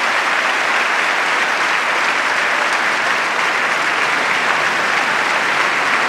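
Large crowd applauding steadily, a standing ovation of many hands clapping at once.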